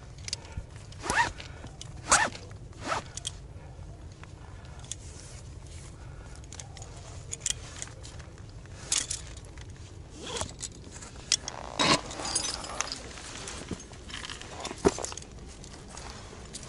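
Handling noise: a series of short rasps, about seven, at irregular intervals, over a steady low rumble.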